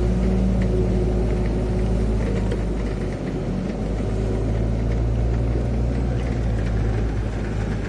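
A vehicle on the move: a steady low rumble of engine and road noise, with a faint engine hum in the first couple of seconds.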